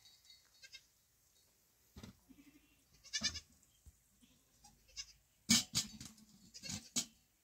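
Small livestock bleating off and on, a few separate quavering calls. In the second half come a few sharp knocks, the loudest sounds here.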